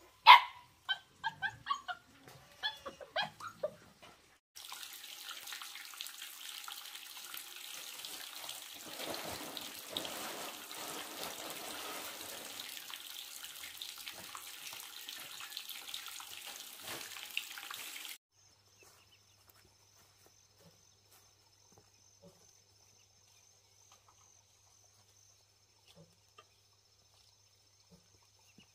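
A dog gives a few short barks, then water runs steadily for about thirteen seconds and stops suddenly. After that only a faint high steady trill remains.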